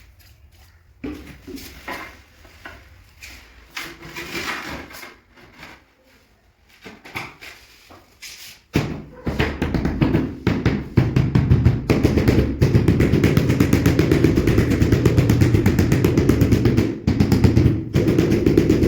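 Scattered faint knocks, then about nine seconds in an engine starts abruptly and runs loudly and steadily with a rapid low pulse.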